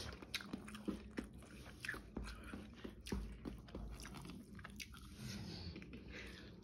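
A person chewing and eating a meal of rice and fish by hand, close to the microphone: an irregular string of short, soft, wet mouth clicks and smacks.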